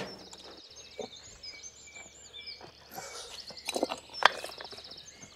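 Birds chirping and trilling, with a few sharp knocks of stone on stone as rocks are handled; the loudest knock comes a little after four seconds in.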